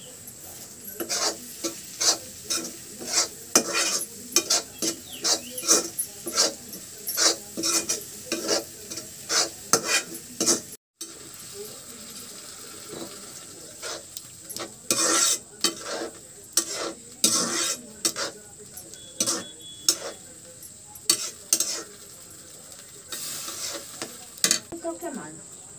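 Slotted metal spatula stirring potato-and-onion curry in a metal kadhai, scraping and knocking against the pan about twice a second, with frying sizzle underneath. The sound drops out briefly about eleven seconds in, then the stirring goes on.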